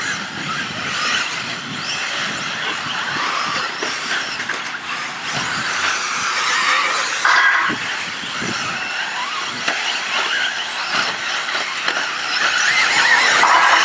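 A pack of 1/8-scale electric RC buggies racing, their brushless motors whining over one another, rising and falling in pitch with the throttle. The sound grows louder near the end.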